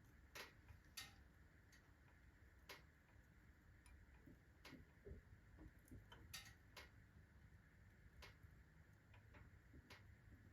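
Wood-burning stove heating up after fresh kindling and logs: faint, irregular sharp ticks and clicks, about a dozen, from the stove's iron working as it expands in the heat.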